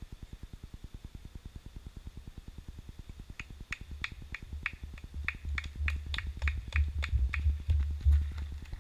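A marathon runner's footsteps approaching and passing close: a quick, even patter of about three strides a second that grows louder, with low thuds building to their loudest as he goes by near the end.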